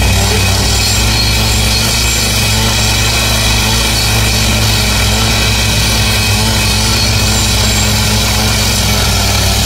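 Petrol-engined rail cut-off saw running steadily under load, its abrasive disc grinding through a steel rail: a constant engine hum under a loud, even grinding hiss.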